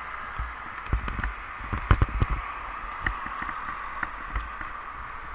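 Wind buffeting the microphone of a bicycle-mounted camera while riding, heard as irregular low thumps, the strongest about two seconds in, over a steady hiss of traffic and road noise.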